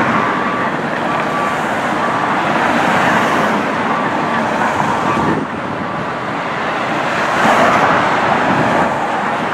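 Fire engine backing into its station bay, its diesel engine running with its reversing alarm beeping about once a second; the beeps stop about five seconds in. The engine noise swells briefly about two-thirds of the way through.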